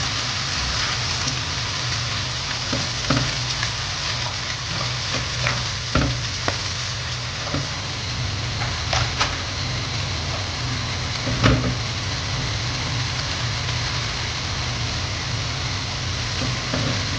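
Sliced onions sizzling steadily in plenty of hot oil in a pan, being fried toward golden brown and stirred with a silicone spatula, with a few sharp clicks of the spatula against the pan.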